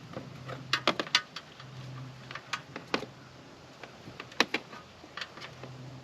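Short, sharp plastic clicks in small quick runs, with one louder snap past the middle: zip ties being pulled tight around the trailer's wiring. A faint low hum comes and goes underneath.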